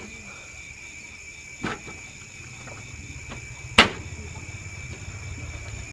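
Knife chopping into bamboo shoots: two sharp knocks, the louder about four seconds in, over a steady high chirring of insects.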